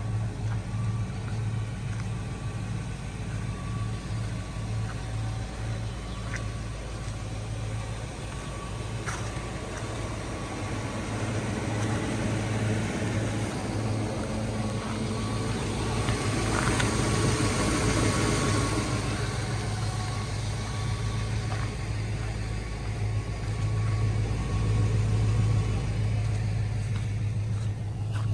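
Ford F-250 Super Duty pickup's engine idling steadily, a low even hum. A rushing noise swells and fades around the middle.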